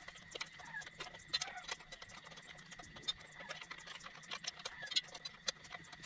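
Irregular light clicks and clinks of a motorcycle roller chain's links being handled, with a faint steady high tone behind.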